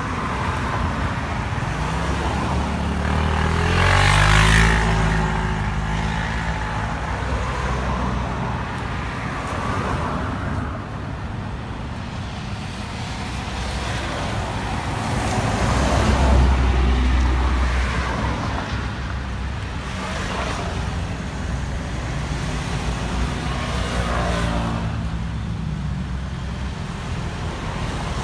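Road traffic going by close at hand: a steady rumble of motor vehicles, swelling as vehicles pass, loudest about four seconds in and again around sixteen seconds.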